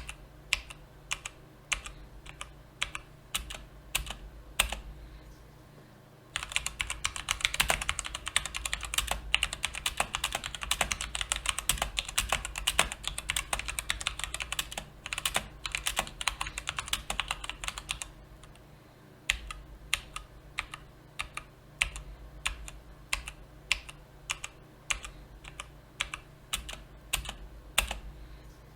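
Mechanical keyboard with brown (tactile) switches being typed on. The keystrokes come one at a time for the first six seconds or so, then turn into fast continuous typing for about twelve seconds, then go back to separate keystrokes.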